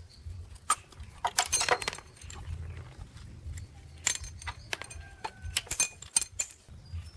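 Small metal parts and tools clinking and clattering against each other in a string of sharp, irregular clicks, bunched into several quick clusters.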